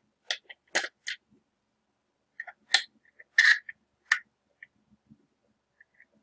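Irregular sharp clicks and knocks of a plastic sensor housing being handled, fitted and turned on a metal rod, with a cluster of louder taps about three seconds in.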